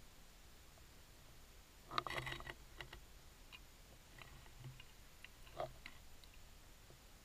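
Faint underwater clicking and crackling over a low hiss. There is a short dense run of clicks about two seconds in and a single sharper click about two-thirds of the way through.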